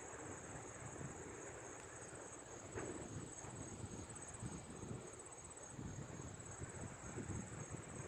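Faint, steady high-pitched trilling of insects, such as crickets, continuing without a break.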